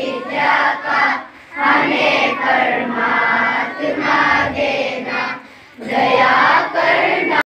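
A large group of schoolchildren singing a prayer together in unison, in three long phrases with short breaks between them. The sound cuts off abruptly near the end.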